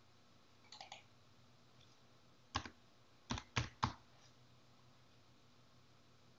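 A couple of light clicks, then four sharp keystrokes on a computer keyboard, the last three in quick succession, as a short number is typed.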